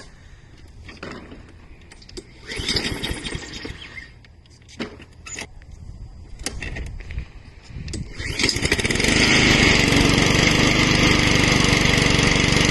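Scattered clicks and knocks, then about eight seconds in a Honda GCV160 lawnmower engine starts and runs steadily and loudly.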